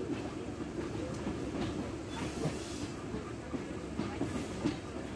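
Passenger train rolling along the track, its wheels clicking over rail joints with a steady rumble. A brief high wheel squeal comes about two seconds in and again near the end.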